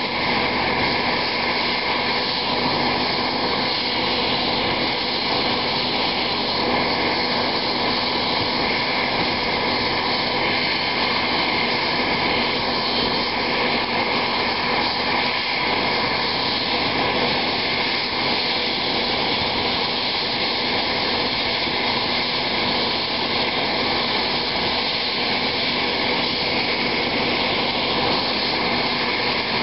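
Army UH-60 Black Hawk helicopter's twin turboshaft engines running steadily on the ground with the main rotor turning: a constant turbine whine with several steady tones over a dense rushing noise.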